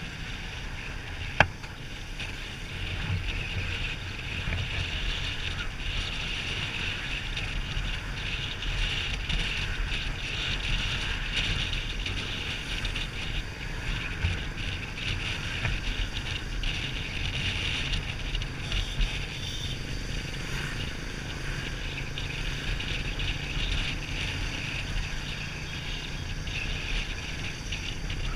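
Wind rushing over the microphone of a camera mounted on a moving Yamaha Sniper motorcycle, with the steady drone of its engine and the road beneath. A single sharp click about a second and a half in.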